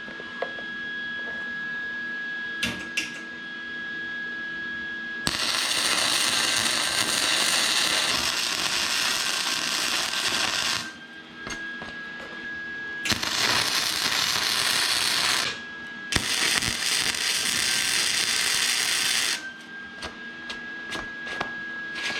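Electric welder laying tack welds: three runs of steady buzzing crackle, the first about five seconds long and the next two shorter, with short pauses between.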